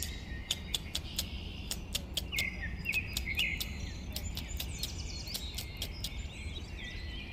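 Forest birdsong ambience: several birds chirping and calling, with sharp irregular ticks throughout, over a low steady rumble.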